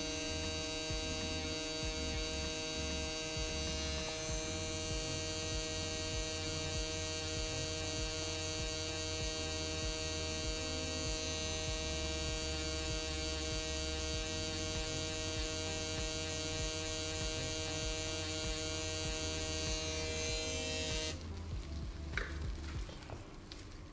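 Permanent-makeup machine pen buzzing steadily while shading the eyebrow, then switched off near the end, leaving a few faint clicks.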